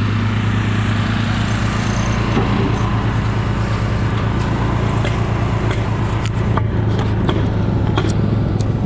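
Steady low hum of running construction machinery, with scattered sharp knocks from work on the site that come more often near the end.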